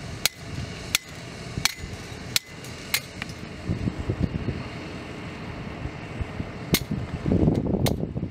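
Hammer striking steel stakes for a curb form. About five sharp metallic strikes come roughly 0.7 s apart, then a pause, then two or three more near the end.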